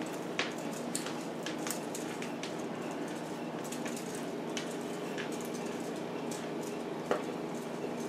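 Electrical tape being pulled off the roll and wrapped around a soldered wire splice: faint scattered crackles and ticks, with one sharper click about seven seconds in, over a steady low hum.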